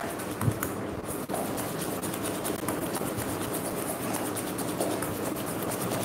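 Hand whisk beating ghee and sugar in a stainless steel bowl: continuous rapid scraping strokes of the wires against the metal, with a couple of light knocks about half a second and a second and a half in. The mixture is being creamed until fluffy.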